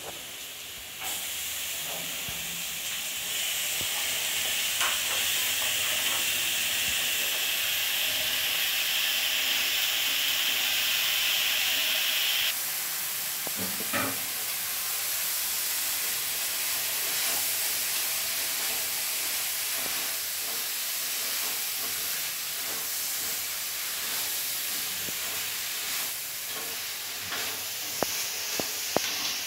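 Cauliflower and potato pieces frying in hot oil in a brass kadai: a steady sizzling hiss that eases a little about twelve seconds in. Occasional short clicks and a knock of the food being stirred in the pan.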